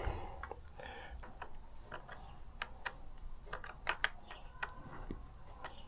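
Faint, irregular small metallic clicks and taps of hand tools and terminal hardware while the charger cable is being fastened to the motorcycle battery's negative terminal.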